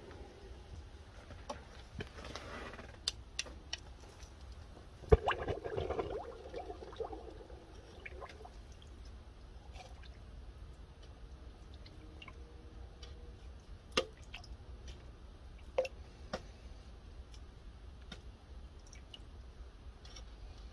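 A red-hot leaf-spring steel knife blade plunged into a bucket of quench water about five seconds in: a sharp splash, then a couple of seconds of bubbling sizzle as the steel is hardened. Later come two sharp metal knocks.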